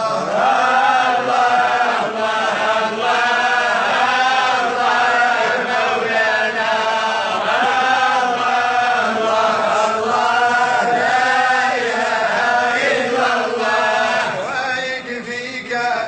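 A solo voice chanting slow, drawn-out wavering notes, a vocal soundtrack laid over the footage, easing off near the end.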